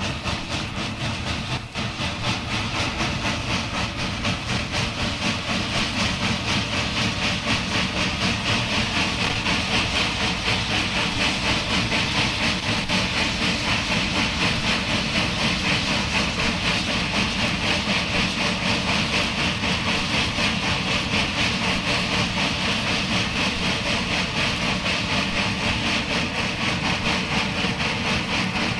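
Duluth, Missabe & Iron Range No. 225, a 2-8-8-4 Yellowstone articulated steam locomotive, working hard at speed, recorded from alongside as it is paced. Its exhaust beats come in a fast, even rhythm and grow louder over the first several seconds.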